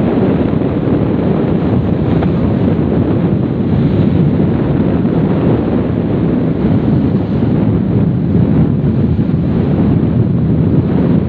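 Wind buffeting the microphone of a camera on a moving motorcycle: a loud, steady rumble that does not let up.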